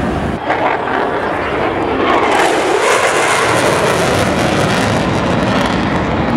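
Airplane flying past, its engine a loud, even rush that swells about two seconds in, with a pitch that dips and comes back up as it goes by.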